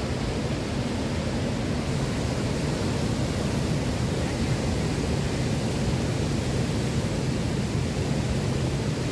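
Waterfall in flood: a steady rush of heavy falling water.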